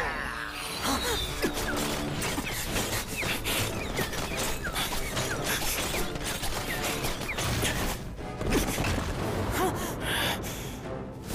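Soundtrack of an animated fight clip: music mixed with scattered impacts and crashes.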